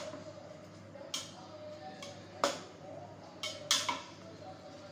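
A metal spoon stirring a thick curry in a steel cooking pot, clinking sharply against the pot four times, over a steady low hum.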